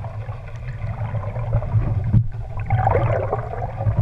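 Muffled water sloshing and gurgling around an underwater camera, getting louder past the halfway point, over a steady low hum from an idling boat engine.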